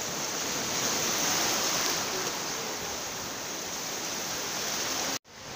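Sea surf washing in shallow water, a steady rush of waves that swells about a second in; the sound cuts out abruptly for a moment near the end.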